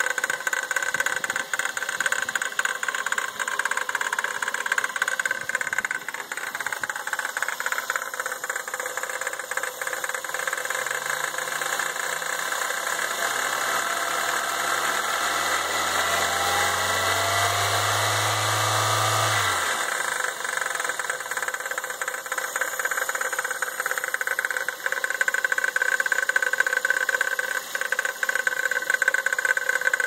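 2001 Toyota Corolla engine running at idle with a knocking rattle, which the owner puts down to the power steering pump. From about a third of the way in, a low hum rises in pitch in steps, then cuts off suddenly about two-thirds of the way through.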